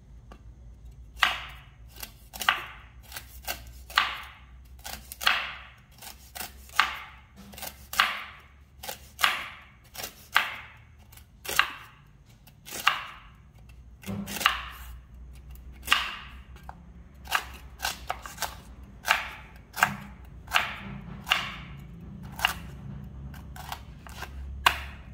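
A knife chopping noni fruit on a board: a long run of sharp chops, roughly one a second, with lighter taps in between.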